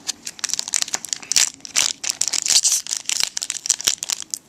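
Trading-card pack wrapper crinkling and being torn open by hand, a dense irregular crackle throughout.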